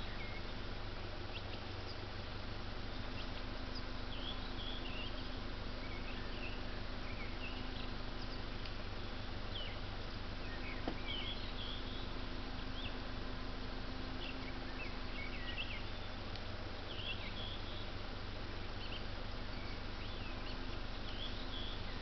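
Small songbirds calling in short, high chirps and twitters scattered throughout, over a steady low hum and hiss, with one brief click about halfway through.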